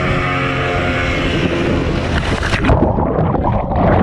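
Motorboat engine running at speed while towing an inflatable banana ride, a steady drone with wind and rushing water. About two and a half seconds in, the sound suddenly turns muffled and churning as it is heard from inside the foaming water.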